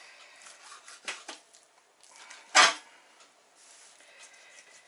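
Kitchen knife slicing pork skin away from the meat on a plastic cutting board: soft scraping cuts, two light taps about a second in, and one sharp, loud knock about two and a half seconds in.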